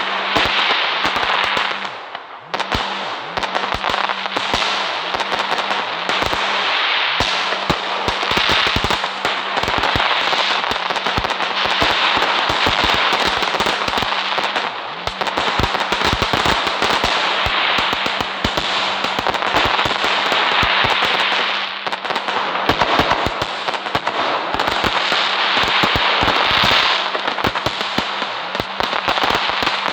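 Firecrackers going off in a dense, continuous crackle of rapid sharp pops over a steady hiss, with a brief lull about two seconds in.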